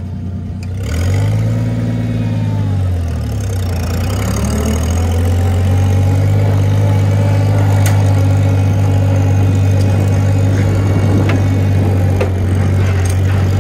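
Straight-piped Oliver 770 six-cylinder tractor engine: revved up and back down about a second in, then picking up again and running steadily as the tractor pulls away under way.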